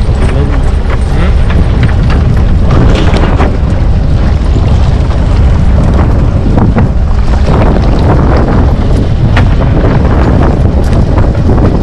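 Small fishing trawler's engine running steadily, with wind buffeting the microphone and scattered short knocks.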